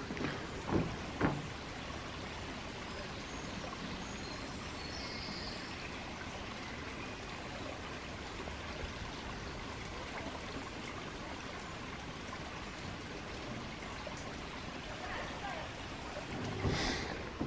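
Small woodland stream trickling steadily over stones and fallen branches. There are two soft thuds about a second in.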